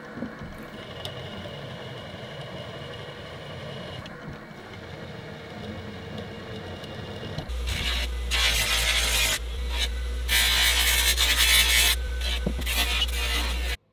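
Milling machine drilling a hole through a polished steel sword crossguard: a steady machine running sound. About halfway through, a bench buffer takes over, its motor humming loudly as steel is pressed against the spinning wheel, making a loud, rough noise that stops and starts several times before cutting off suddenly near the end.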